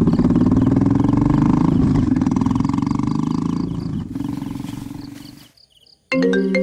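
Motorbike engine running as it pulls away, rising slightly in pitch and then fading out over about five seconds. After a moment of silence, a marimba-style mobile phone ringtone starts near the end.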